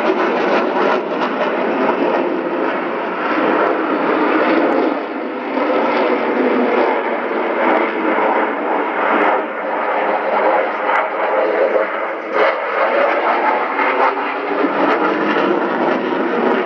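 Loud, steady jet noise from a Sukhoi Su-35 fighter's twin turbofan engines as it flies its aerobatic display overhead, with a few brief clicks.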